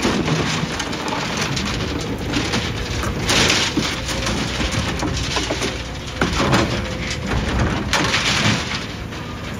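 Hydraulic excavator running while its bucket scrapes under and lifts a broken concrete slab tangled in steel rebar, with crunching concrete and dirt and rubble sliding off. Louder scraping surges come about three seconds in and again near the end.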